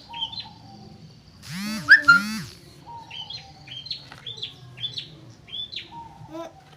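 A small bird chirping in a run of short rising chirps, about two a second. About two seconds in there are two louder, swooping calls that rise and fall.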